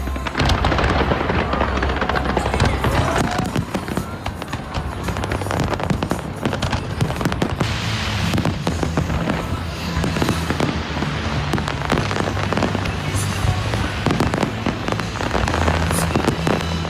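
Fireworks bursting and crackling in quick succession, over loud music with a steady bass line.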